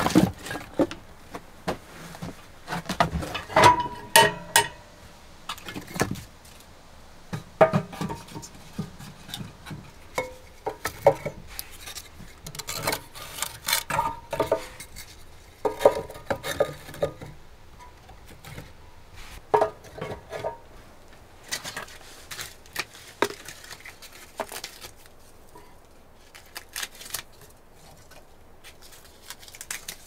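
Split firewood pieces knocking and clattering against each other as they are picked up from a pile and stacked into a small metal wood stove's firebox. The knocks come in bursts, busiest in the first half, and grow sparse near the end.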